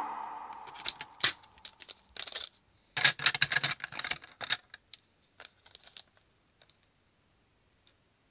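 Blue Plarail plastic toy track pieces, branching switch rails among them, handled and knocking together in irregular light clicks and clatters, busiest about three to four and a half seconds in, then thinning out to a few scattered clicks.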